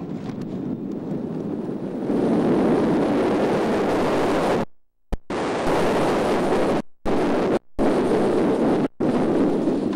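Wind rushing over the microphone and the Steel Phantom's coaster train running on its steel track as it dives down a drop, growing much louder about two seconds in. The recording drops out into brief silences several times in the second half.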